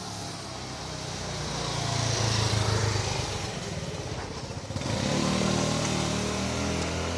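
Small motor scooter passing by: its engine hum grows louder as it approaches, is loudest about two and a half seconds in, and fades away by about four and a half seconds. Another engine comes in about five seconds in and keeps running.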